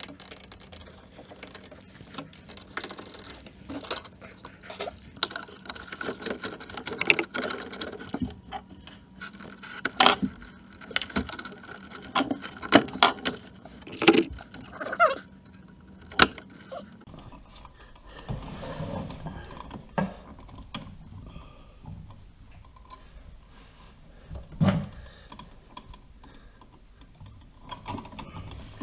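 Hand work on electrical wiring and an outlet box: irregular small metallic clicks, clinks and rattles of tools, wires and hardware, with a few dull knocks in the later part.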